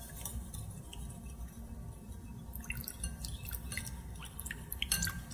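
Wire whisk ticking lightly and irregularly against a glass mixing bowl as milk is slowly poured in and whisked into a beaten egg, with soft liquid sloshing. The ticks come more often in the second half.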